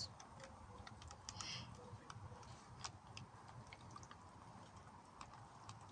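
Near silence with faint, scattered light clicks and ticks.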